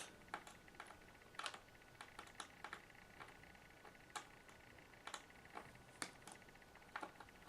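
Faint, irregular small clicks and ticks of a Phillips screwdriver working out the small screws that hold a laptop screen panel in its lid.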